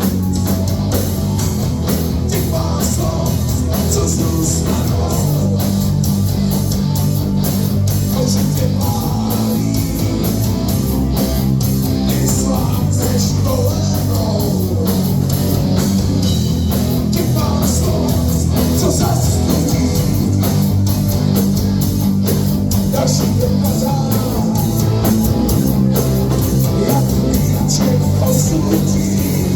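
Rock band playing loud, steady rock music with guitars to the fore.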